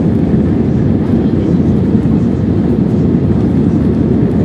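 Steady, loud roar of an Airbus A320's jet engines and rushing air, heard from inside the passenger cabin while the airliner climbs after take-off.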